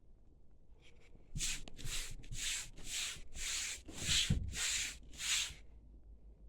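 A run of about eight raspy scratching strokes, roughly two a second, starting about a second in and stopping near the end.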